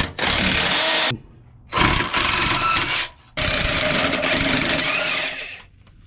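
Cordless impact wrench hammering on bolts under a car, in three bursts: about a second, about a second, then a longer one of about two seconds, with short pauses between.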